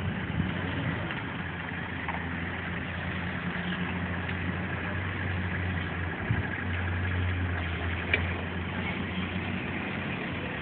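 An engine idling with a steady low hum that briefly dips about six seconds in.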